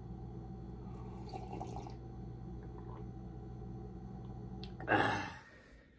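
A man sipping coffee from a mug, faint slurping sounds, over a steady low hum in the room. A short burst of noise comes about five seconds in.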